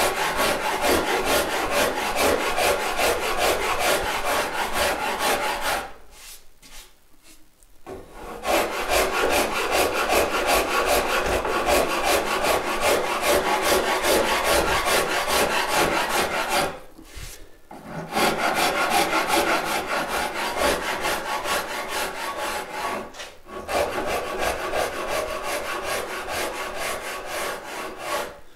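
Saw rasp shaping the back of a wooden Telecaster guitar neck in quick, repeated rasping strokes, roughing in a facet of the neck's carve. The rasping stops for about two seconds some six seconds in, again briefly around seventeen seconds in, and for a moment near twenty-three seconds in.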